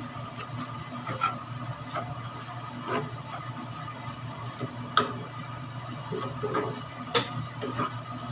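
Spatula stirring grated coconut in peanut sauce in a pan, with scraping and a few sharp knocks of the spatula against the pan, over a steady low hum.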